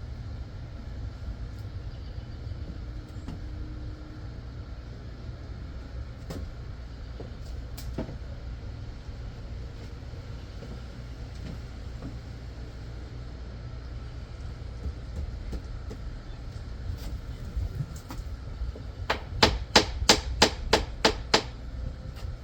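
A steady low rumble, then near the end a quick run of about ten sharp knocks, three or four a second, the loudest sounds here.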